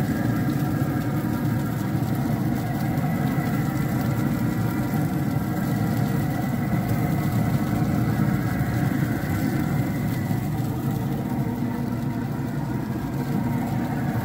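Traeger pellet grill running, a steady mechanical hum with several held tones from its fan.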